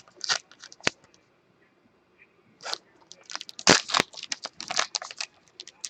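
Trading-card packs and cards being handled: short crinkling and crackling of wrappers with sharp clicks, quiet for a second and a half near the start, then a denser run of crinkles.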